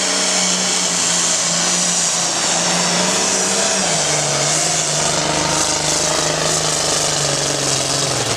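International pulling tractor's engine running hard under full load, its pitch dropping in steps about four seconds in and again near the end as it slows. It sounds off, typical of a dropped valve or injector and a lost cylinder, which the announcer suspects.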